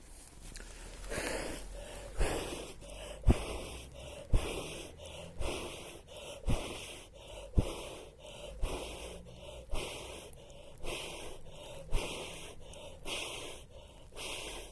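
A person blowing hard onto a smouldering fire in repeated puffs, roughly one a second, each blast hitting the microphone with a low thump, to coax the embers into flame.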